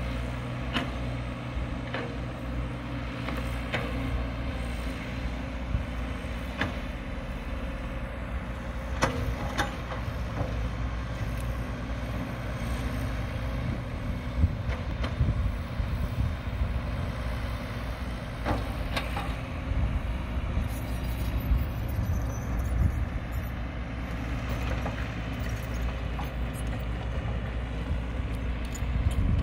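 Diesel engines of a Caterpillar 312 excavator at work and dump trucks running steadily, with occasional sharp knocks.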